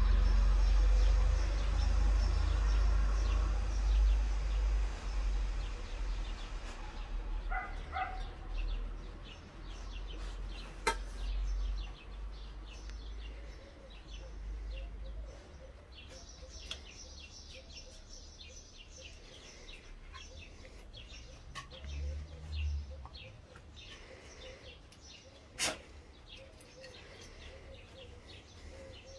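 Small birds chirping in the background, many short faint chirps. A low rumble fills the first several seconds, and two sharp clicks stand out, one about eleven seconds in and one a few seconds before the end.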